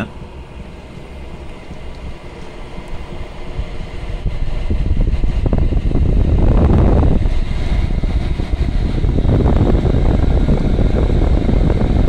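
Chinese diesel air heater picking up speed, its fan and burner running with a low, uneven rumble that grows clearly louder about four seconds in and then holds.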